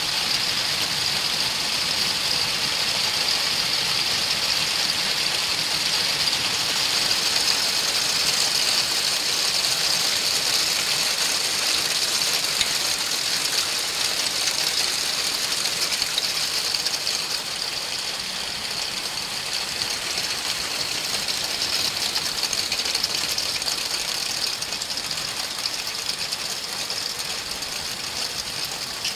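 Heavy hail and rain falling, a dense steady hiss of countless small impacts on the ground, easing slightly about halfway through.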